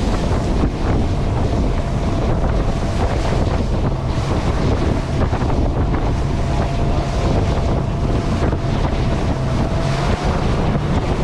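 Strong wind buffeting the microphone aboard a Buster Magnum aluminium motorboat running through a choppy sea, with the outboard engine's steady hum underneath and the hull thudding on the waves.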